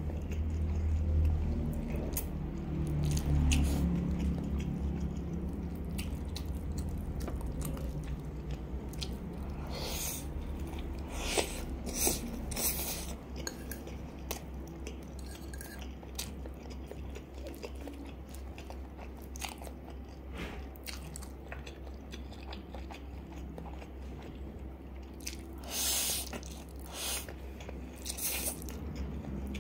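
Close-miked chewing of instant black bean sauce noodles, with sharp wet mouth smacks and slurps every few seconds, several close together near the end.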